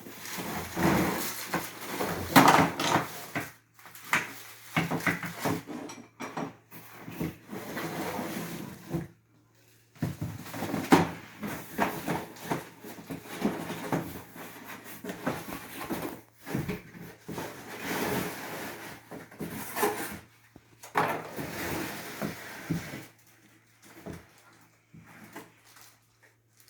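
Pedestal fan parts and packaging being handled as they are taken out of their cardboard box: irregular knocks and clatters of plastic pieces with rustling of cardboard and packing material, broken by a few short pauses.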